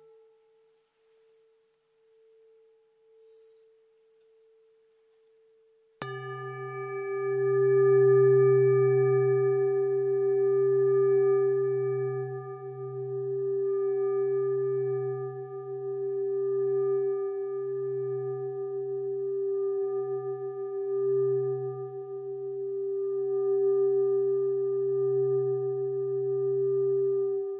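Singing bowl struck once about six seconds in, after the faint end of an earlier bowl's ring has died away. It rings on steadily for about twenty seconds with a slow wavering throb in its low hum, then stops abruptly near the end.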